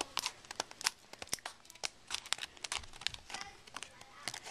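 Clear plastic cube packaging being handled and pried at by hand, giving irregular crinkles and sharp clicks as the package is worked open.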